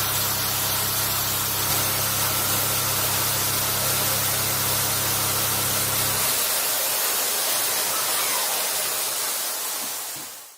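Steady loud hiss of an industrial cutting machine, with a low hum beneath it that stops about six seconds in. The hiss then fades away near the end.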